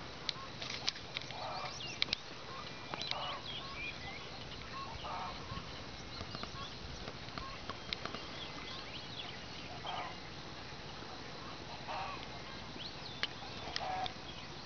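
Domestic fowl calling now and then: short calls every couple of seconds, with small clicks and chirps over a steady background hiss.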